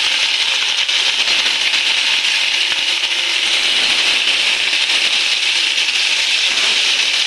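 Marinated fish pieces sizzling steadily as they deep-fry in hot refined oil in a kadai.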